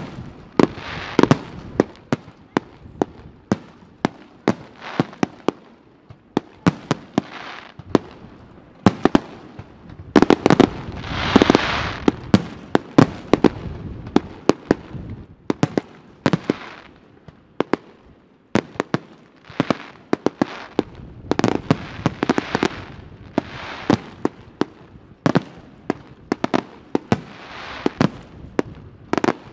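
Aerial firework shells bursting in a rapid, irregular string of sharp bangs, with crackling and hissing between them; a louder, longer stretch of crackle swells about ten seconds in.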